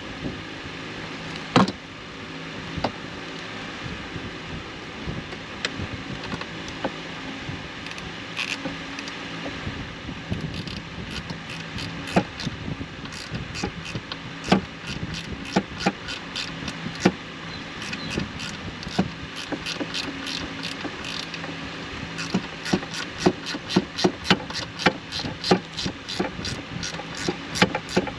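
Hand ratchet wrench clicking as it runs in the shifter's mounting screws. The clicks are scattered at first, then come faster and more evenly, about two to three a second near the end.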